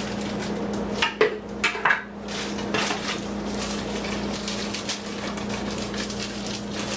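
Hard plastic vacuum-cleaner parts clattering as they are handled and set down: a quick cluster of sharp knocks about a second in, then softer handling noises, over a steady low hum.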